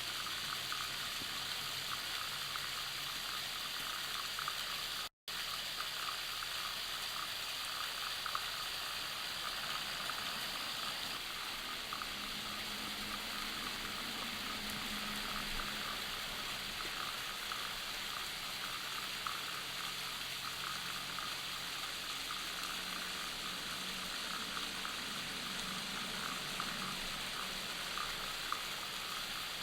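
Waterfall rushing steadily with a constant splashing hiss. The sound cuts out completely for a moment about five seconds in.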